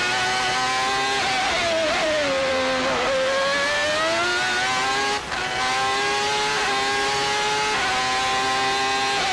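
Ferrari Formula One car's engine at high revs, heard onboard. The pitch falls through downshifts around two to three seconds in, then climbs again with quick gear changes, including a brief cut about five seconds in.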